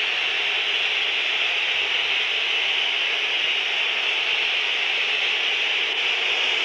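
Football stadium crowd: a steady, dense din from the stands while a penalty is taken in a shootout, heard through a TV broadcast.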